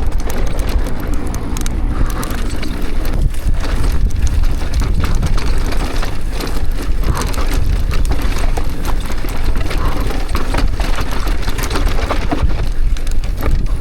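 Mountain bike riding down a dry, loose, sandy trail: tyres grinding over dirt with a constant rattle of small clicks and knocks from the bike. Heavy wind rumble on the camera's microphone.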